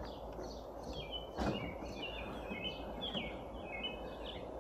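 A small bird chirping repeatedly over faint, steady outdoor background noise, with one soft knock about a second and a half in.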